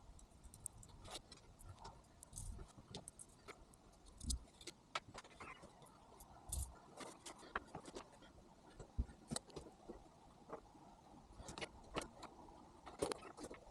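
Faint, irregular light clicks, taps and clinks of small metal parts and hand tools being handled while a steering-wheel boss is assembled with screws and fittings.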